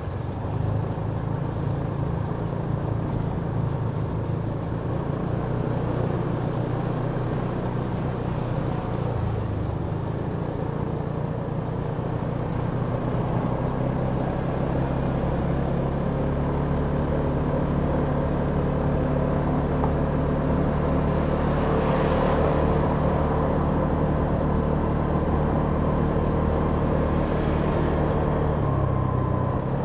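Kymco Downtown 350i scooter's single-cylinder engine running while underway, a steady engine note that rises and falls slightly with the throttle and drops in pitch near the end. A short rush of noise comes about three quarters of the way through.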